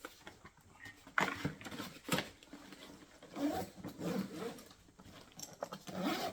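A few sharp clicks and rustles of a backpack being handled in the first couple of seconds, then a dog vocalising in two short stretches of wavering, low-pitched sound.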